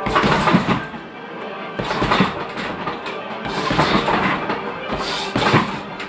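Gloved punches striking a free-standing heavy bag in four short flurries, about a second and a half apart, over background music.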